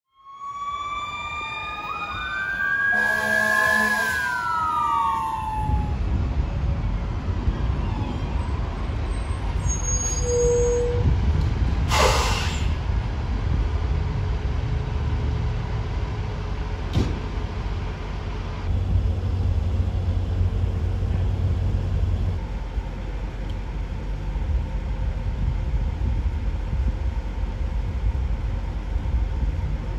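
A fire engine's siren winds down in falling wails, with a brief horn blast, then the truck's diesel engine runs with a steady low rumble. A short burst of hiss, typical of an air brake, comes about twelve seconds in.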